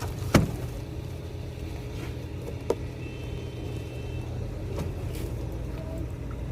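A vehicle engine idling steadily, with two sharp knocks from goods being handled: the loudest about a third of a second in, a lighter one a couple of seconds later.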